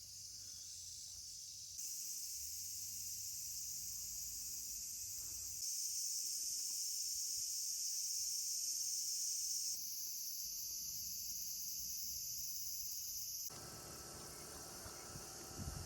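Outdoor insect chorus, a steady high-pitched chirring, with the loudness stepping up and down abruptly a few times.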